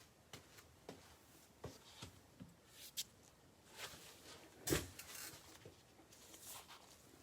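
Light handling noise: scattered soft taps, clicks and brief rustles of things being moved about on a table, with one louder knock a little past halfway.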